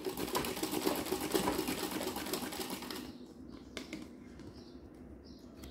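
Sewing machine running fast in straight stitch for free-motion embroidery, a rapid even run of needle strokes that stops about three seconds in.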